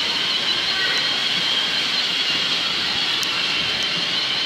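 Children's electric ride-on motorcycle running: a steady high whine and hiss from its small motor and gearbox as its plastic wheels roll over the tiled floor, with a couple of faint clicks in the last second or so.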